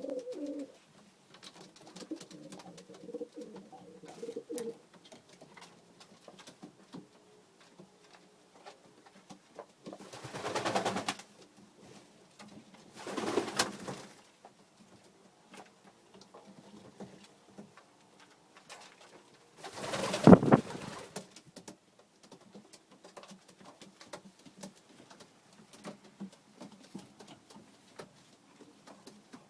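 Domestic pigeons cooing, most busily in the first few seconds, with three louder rushing bursts about ten, thirteen and twenty seconds in.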